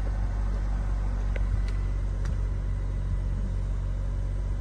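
1997 Mitsubishi Carisma GLi's petrol engine idling steadily, with a few faint clicks in the middle.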